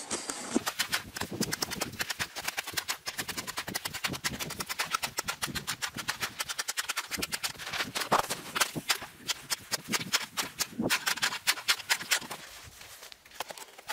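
Ice being chipped and crunched with a long ice chisel around an ice-fishing hole: a fast run of sharp crunching clicks, several a second, easing near the end.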